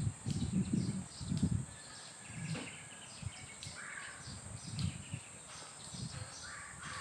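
Outdoor ambience with two short animal calls, one about four seconds in and one near the end. A steady high hiss runs underneath, with low rumbles on the microphone and a few faint clicks.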